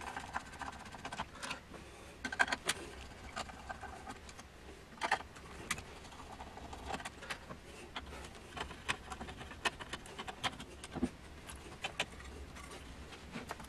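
Irregular metallic clicks, clinks and knocks as hands handle the parts and sheet-metal chassis of an opened Quantel Paintbox power supply unit, some clinks ringing briefly.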